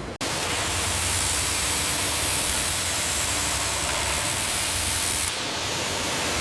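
Steady hissing noise from factory machinery with a low hum underneath, starting abruptly. About five seconds in, the highest part of the hiss drops away.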